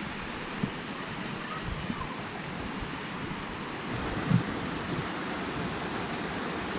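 Steady rushing noise, with a few faint knocks and a soft thump about four seconds in.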